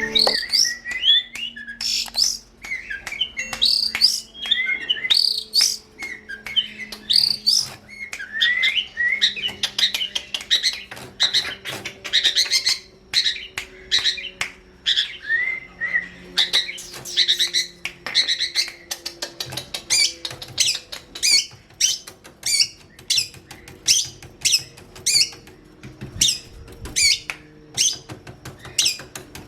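Long-tailed shrike (cendet) singing: a rapid, varied chatter of chirps and slurred whistled notes, turning about halfway through into a fast series of short, sharp repeated chirps.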